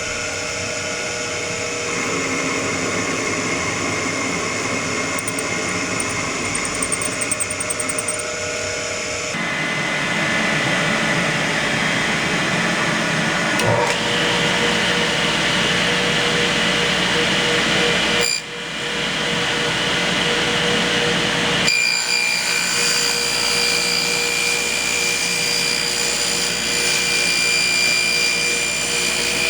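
A power tool running steadily as it machines a strip of metal cut from an old clamp, with a few steady whining tones over the noise. Its pitch and character change abruptly several times.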